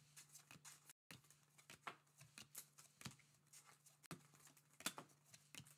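Faint, irregular soft clicks and rustles of glossy baseball trading cards being slid one by one from the front to the back of a hand-held stack, over a low steady hum.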